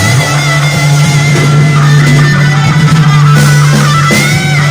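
Music led by guitar: a wavering melody over a held low note.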